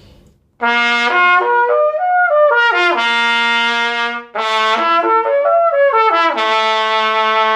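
Silver trumpet playing lip slurs: notes slurred up and down the harmonic series without tonguing, in two phrases with a short break about four seconds in, each settling on a held low note.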